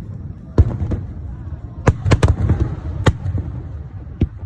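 Aerial fireworks bursting: about half a dozen sharp bangs, several in quick succession around two seconds in, over a continuous low rumble.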